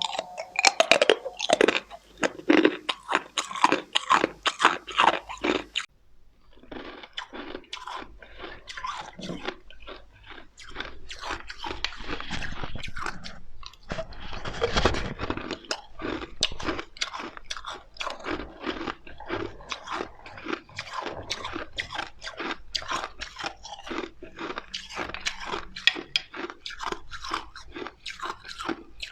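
Ice being bitten and chewed, close crunching. The crunching is loudest in sharp bursts for the first few seconds, stops briefly, then goes on steadier and a little quieter.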